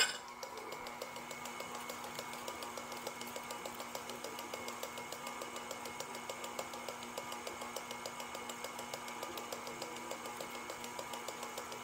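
Electric stand mixer running steadily while it mixes cookie dough: a constant motor hum with a fast, even clicking.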